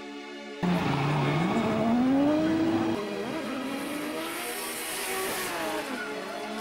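A drifting car's engine revs hard, rising in pitch, then wavers up and down as the car slides, with tyres squealing and hissing through the middle. Music plays for a moment before the car sound cuts in.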